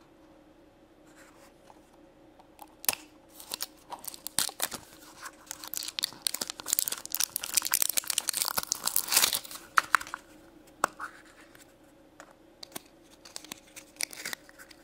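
Plastic wrap being torn and peeled off a Mashems toy capsule: crackling and tearing that starts about three seconds in and is busiest in the middle, then thins to scattered crinkles and clicks as the plastic capsule is handled.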